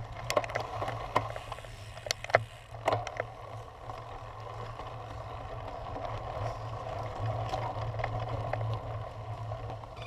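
Cyclocross bike ridden over grass and dirt, heard through a bike-mounted action camera: steady tyre and wind rumble, with sharp rattles and clicks from the bike over bumps in the first three seconds.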